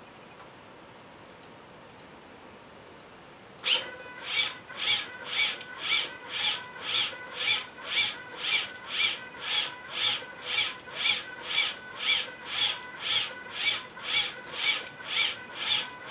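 Delta robot's arm motors and linkages working as the effector swings rapidly back and forth, making a rhythmic rasping whine of about two strokes a second that starts suddenly about four seconds in.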